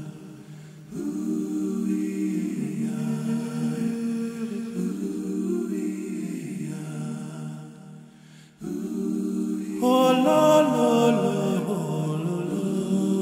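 A cappella vocal music: several voices singing held chords, with brief breaks between phrases. About ten seconds in, a higher voice line comes in louder over them.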